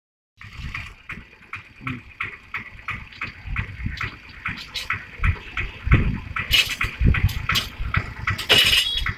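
Yuvraj 215 mini tractor's engine running and driving its mounted agricultural spray pump: a regular knocking beat about three times a second over a low rumble. Brighter hissing bursts come in the second half.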